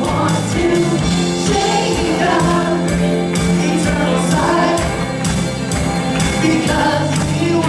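Live worship band: several voices singing a worship song with electric guitar over a steady beat.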